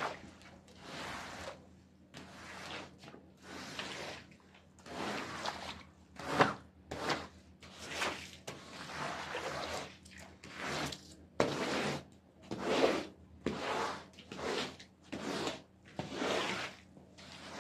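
Rubber floor squeegee pushed across a soaked rug in repeated strokes, each a wet scraping swish as water is driven out of the pile, about one stroke a second.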